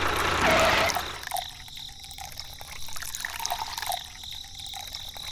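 Water trickling and dripping, with small scattered ticks, after a louder rush of noise that stops about a second in.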